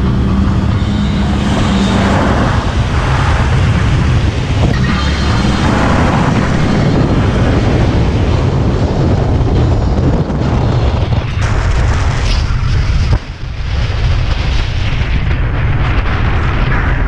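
A car driving along a gravel track, heard as a steady low rumble of wind buffeting and road noise on an outside-mounted camera's microphone.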